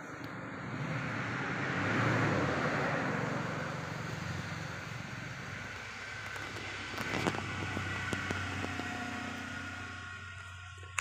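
A road vehicle passing by: its noise swells to a peak about two seconds in and then slowly fades, over a steady low hum. There is a short knock about seven seconds in.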